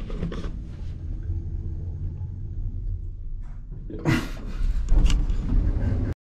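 Low, steady rumble of a lift car in motion, with two brief sharper sounds about four and five seconds in.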